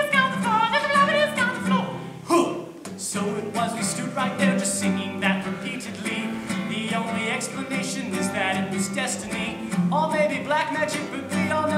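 Nylon-string classical guitar strummed in steady chords, with a voice singing along.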